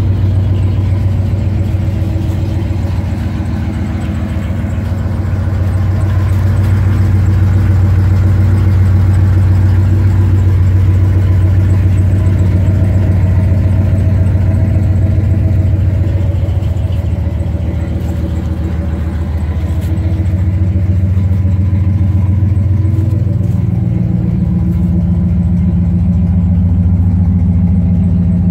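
A 1995 Dodge Ram 2500 pickup's engine idling steadily, heard close to the tailpipe. The note swells gently in loudness and shifts slightly near the end.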